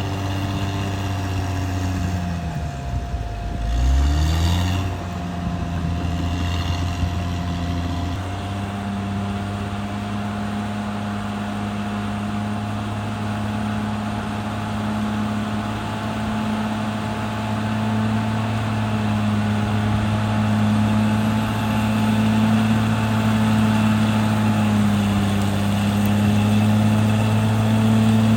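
CAT D6R XL bulldozer's diesel engine running; about three seconds in its speed drops sharply and climbs back, then it runs steadily at a higher speed. A thin steady whine sits over the engine note.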